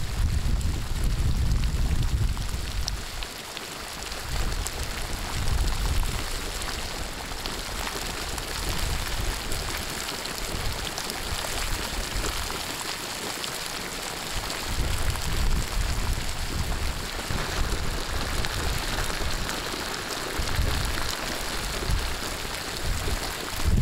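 Hot sulphur spring water gushing and splashing over its mineral-crusted mound, a steady rushing hiss like heavy rain. Low rumbles of wind on the microphone come and go.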